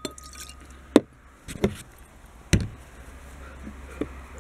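A glass shot measure and liquor bottles knocking and clinking on a hard tabletop as they are handled and set down: a handful of sharp knocks, the loudest about a second in and again about two and a half seconds in.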